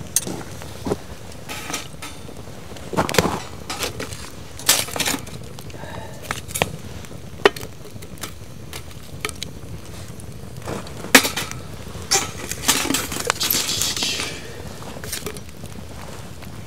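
Burning embers being set one after another onto the lid of a cast-iron Dutch oven: scattered clinks and knocks on the iron lid over a crackling wood fire.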